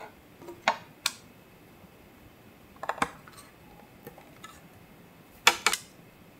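3D-printed ABS fairing parts and their joining pin being handled and pressed together: scattered hard plastic clicks and taps, with the loudest double click about five and a half seconds in.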